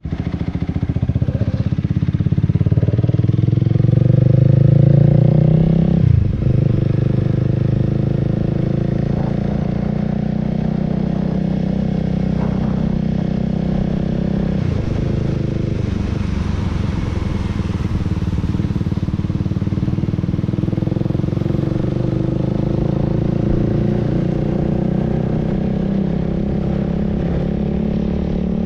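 Honda Rebel 300's single-cylinder engine under way, its note climbing during the first few seconds, then dropping sharply twice, about six and fifteen seconds in, before settling into a steady cruise.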